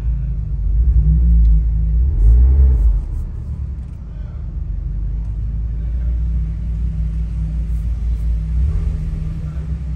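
Car engine rumbling steadily at low revs, louder for the first few seconds and then settling to an even drone.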